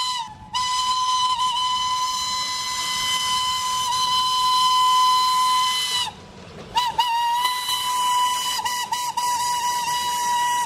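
Steam locomotive whistle blowing long, steady blasts on one pitch. It cuts off briefly just after the start and again around the middle, then sounds again with a few short stuttering toots before settling back into a held blast.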